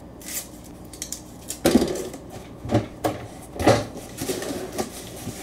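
Rolls of tape being dropped and set into a cardboard box: a series of knocks and clatters, about half a dozen, the loudest about two seconds in.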